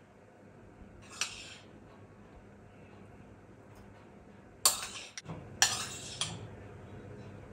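Kitchen utensils and dishes clinking and clattering: one sharp clink about a second in, then a cluster of clinks between about four and a half and six and a half seconds in.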